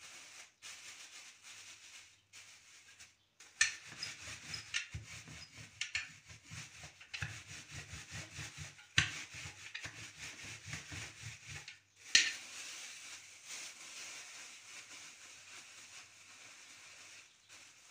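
Wooden rolling pin rolled back and forth over shelled walnuts in a plastic bag, crushing them, with the bag rustling and a few sharp knocks along the way. Near the end the plastic bag crinkles as it is squeezed by hand.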